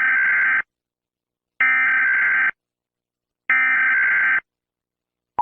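Emergency Alert System SAME header: three harsh, screechy digital data bursts, each about a second long with about a second of silence between them. They encode the alert's details and open the broadcast of a severe thunderstorm warning.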